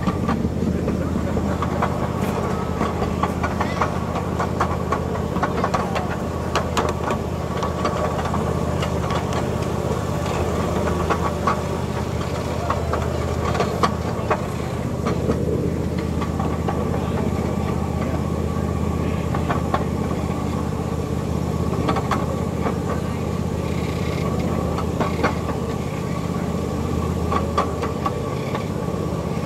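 Miniature ride-on train running along its track: a steady engine hum with irregular clicks and clacks from the wheels on the rails.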